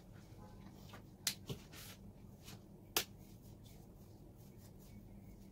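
Small handling sounds: a few light, sharp clicks, the sharpest about three seconds in, and a short rustle, over a faint steady hum.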